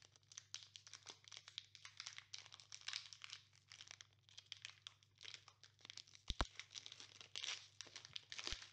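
Foil booster-pack wrapper crinkling and tearing as it is opened by hand, in faint, irregular crackles. A brief low bump a little over six seconds in.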